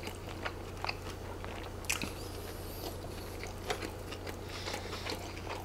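Biting into and chewing a mouthful of double cheeseburger close to the microphone, with many small wet mouth clicks and smacks scattered irregularly through it, over a faint steady low hum.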